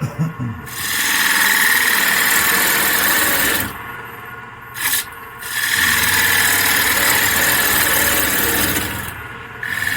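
Turning tool cutting a wooden lid spinning on a wood lathe, in two long passes of a few seconds each, with the lathe running more quietly between them and a couple of short knocks as the tool meets the wood.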